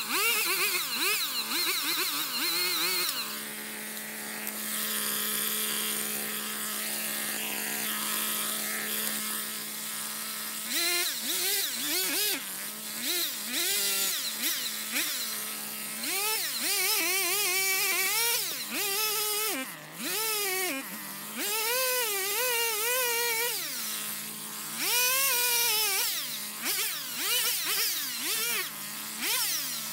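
Stihl MS 170 two-stroke chainsaw cutting brush and small saplings. It idles steadily from about three to eleven seconds in, then is revved up and let back down again and again through short cuts.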